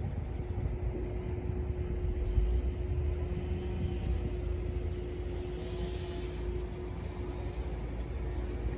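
Heavy diesel machinery running steadily: a low engine rumble with a thin, steady whine held over it through most of the stretch.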